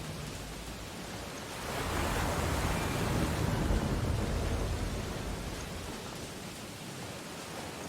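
Ocean waves on a beach: one wave breaks and surges up about a second and a half in, then washes back and fades over the next few seconds, over a steady surf hiss.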